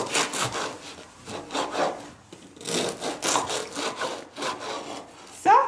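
Knife sawing through a crusty baguette on a wooden cutting board: a run of rasping back-and-forth strokes, about two a second.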